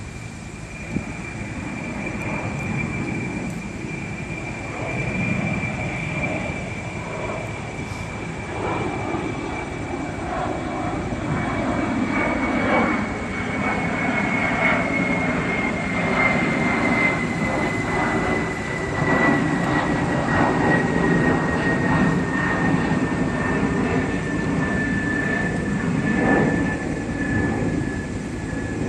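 An airplane passing overhead: a steady low rumble that swells and a high engine whine that falls slowly in pitch.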